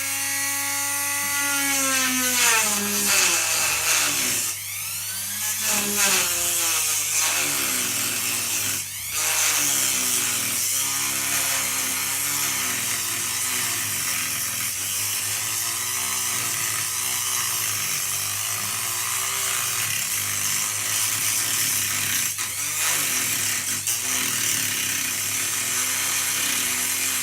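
Ryobi power tool with a diamond blade running and grinding on bathroom tiles, its motor pitch sagging and recovering as the blade bites. It is on its lowest speed setting, which the owner finds now runs almost at full speed.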